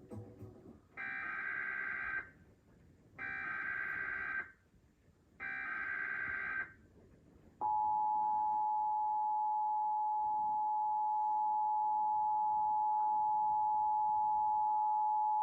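Emergency Alert System activation tones: three bursts of about a second each of the SAME header's warbling digital data tones, then, about halfway through, the steady two-tone EAS attention signal held for about eight seconds. Together they announce a flash flood warning.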